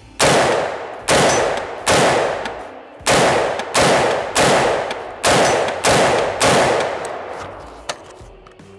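Nine gunshots from a 7.5-inch-barrel AR-15 pistol with a standard A1 flash hider, fired one at a time at an uneven pace of roughly one a second. Each is a sharp crack with a fading echo: a muzzle blast the shooter finds a little too blasty.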